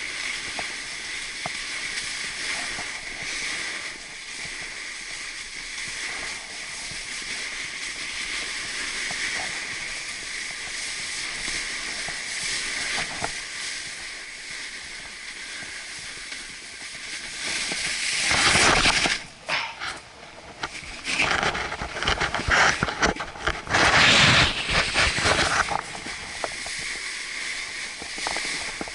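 Snowboard sliding down groomed snow, a steady hiss of the board scraping the surface with the rush of air past the camera. Past the middle, for about eight seconds, it turns much louder and gusty, rumbling and buffeting, then settles back to the steady hiss.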